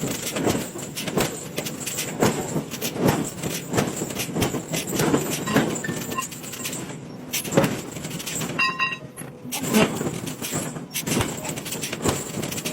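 Forging work in a metal shop: a run of irregular knocks and clanks, a few a second, with a brief break about nine seconds in.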